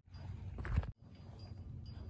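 Footsteps crunching on a loose gravel trail over a steady low rumble; the sound drops out for an instant just before a second in.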